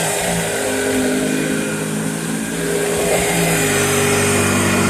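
2011 Oreck XL Commercial upright vacuum running, a steady motor hum with several tones. About three and a half seconds in, the tones shift and the sound gets a little louder. The owner finds it a little loud on the brush and suspects a brush issue.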